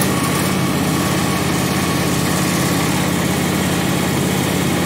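John Deere X724 lawn tractor's liquid-cooled Kawasaki V-twin engine running steadily just after a cold start.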